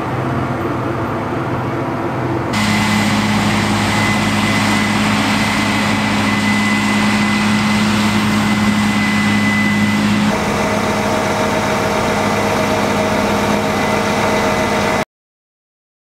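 A John Deere tractor's engine running, heard from the cab. After a cut about two and a half seconds in, a Case combine harvesting soybeans: a steady engine and machinery drone with a high, steady whine. The sound cuts off suddenly near the end.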